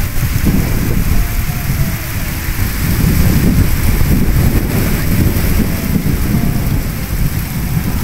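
Wind buffeting the microphone: a loud, uneven low rumble that swells and dips in gusts.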